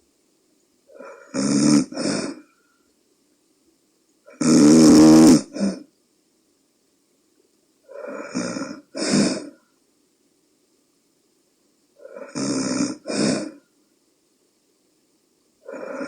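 A woman around forty snoring in her sleep: a snore about every four seconds, most in two quick parts, the one about four seconds in the loudest and most buzzing. She is snoring despite a nostril-dilating insert meant to reduce it.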